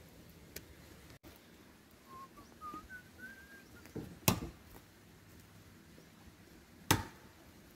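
A few faint, short whistled notes climbing in pitch, then two sharp knocks a couple of seconds apart, which are the loudest sounds.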